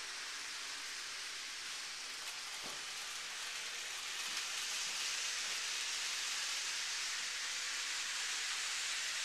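Model freight train running on the layout's track: a steady rushing hiss of wheels and motor with a faint steady hum, growing louder about four seconds in as the train rounds the curve toward the front of the layout.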